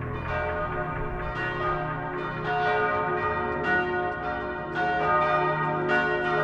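Church bells ringing, a run of overlapping strikes about two a second, each note ringing on after it is struck.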